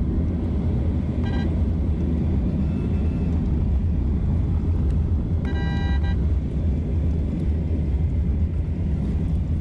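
Steady low road and engine rumble inside a moving car's cabin. A vehicle horn sounds briefly about a second in, and again for under a second around the middle.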